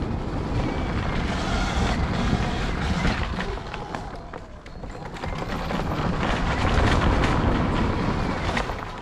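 Sur Ron electric dirt bike ridden over rough dirt: wind rushing on the microphone with a constant clatter and rattle from the bike. The noise eases off about four and a half seconds in, then builds again as speed picks up.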